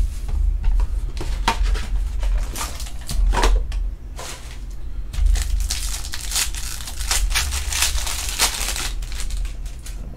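Foil wrapper of a Bowman Chrome trading-card pack crinkling and tearing as it is opened by hand, in an irregular run of crackles.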